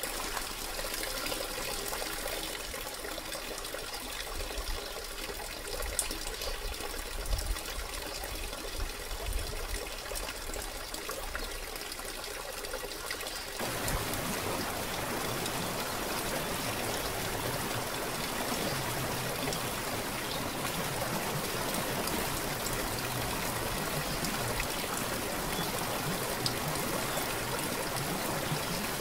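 Waterfall splashing down rock ledges into a pool, a steady rush of falling water, with a few low rumbles about 6 to 10 seconds in. About 14 seconds in the sound changes suddenly to a louder, fuller rush of water.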